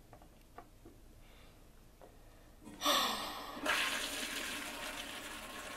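Toilet flushing: a sudden rush of water starts a little under three seconds in, loudest at first, then keeps running more quietly.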